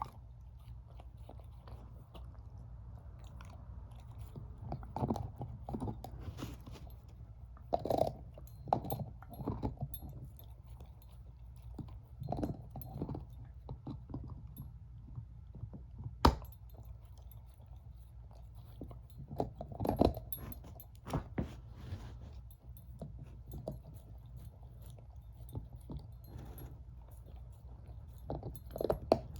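Shepherd-mix dog chewing a bone: irregular runs of loud crunches and gnawing with short pauses between them, and one sharp crack about halfway through. A steady low hum runs underneath.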